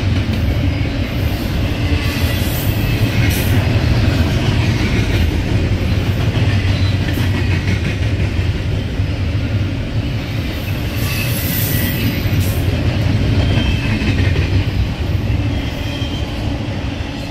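Double-stack container freight cars rolling past: a steady rumble of steel wheels on the rails with brief, high wheel squeals. The sound begins to fade near the end as the tail of the train goes by.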